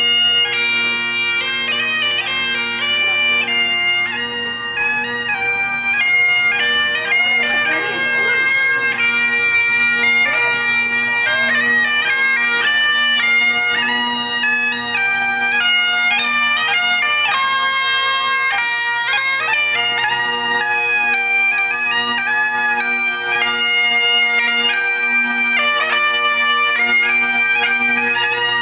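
Highland bagpipes playing a tune: the chanter's melody moves from note to note over steady, unbroken drones.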